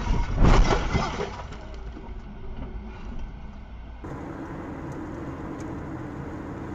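Car crash caught on a dashcam: a sharp impact about half a second in, with the crash noise dying away over the next second or two. About four seconds in it cuts to steady road and engine noise inside a car cruising on a highway.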